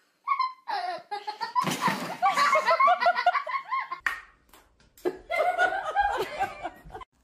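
People laughing hard in two stretches, the second after a sudden break about four seconds in.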